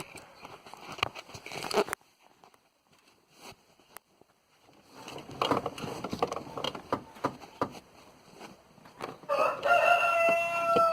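Scattered clicks and rustles of car-stereo wiring and connectors being handled, with a quiet stretch in between. Near the end a loud animal call is held for about a second and a half.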